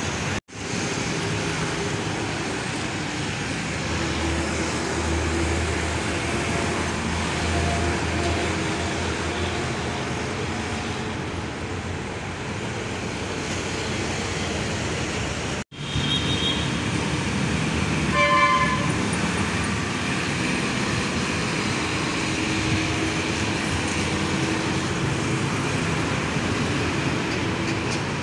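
Steady road traffic noise from passing cars and container trucks, with a short vehicle horn toot about two-thirds of the way through.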